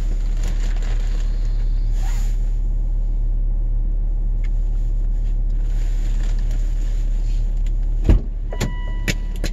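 Steady low drone of a running car heard from inside the vehicle. About eight seconds in comes a sharp thump, then a few clicks and a steady electronic chime tone.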